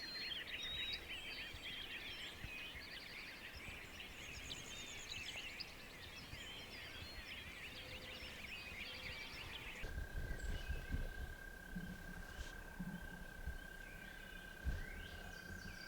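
Many songbirds singing and chirping at once in a dense chorus of trills and chirps. About ten seconds in it breaks off abruptly to a quieter stretch with one steady high tone and a few low thumps.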